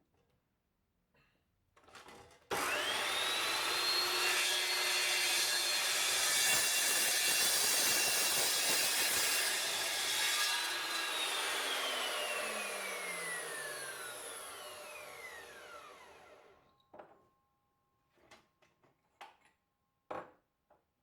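Electric power tool switched on, its motor whine rising quickly to full speed and running steadily for about eight seconds with a harsh cutting hiss, consistent with cutting the steel pipe or rod, then switched off and coasting down with a slowly falling whine. A few short knocks follow near the end.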